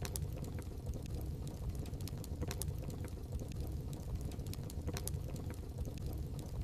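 Wood fire burning in a fireplace: a steady low rumble of flames with frequent irregular crackles and sharp pops.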